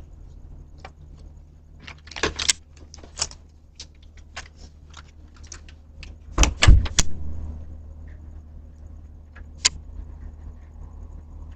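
Scattered clicks and knocks over a steady low hum, the loudest a quick cluster of three about six and a half seconds in and a sharp click near the end.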